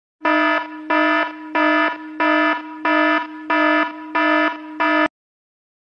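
Low electronic alarm buzzer tone pulsing eight times, about one and a half pulses a second, each pulse loud then dropping away, then cutting off suddenly.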